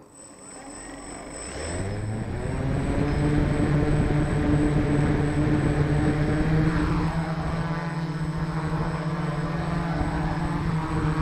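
Multirotor drone's electric motors and propellers spinning up from rest, rising in pitch over about two seconds, then running at a steady hum while the drone is still on the ground.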